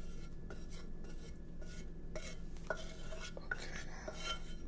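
Kitchen utensil scraping and clinking against a pot as chopped vegetables are tipped in and stirred: soft scrapes with a few light clinks.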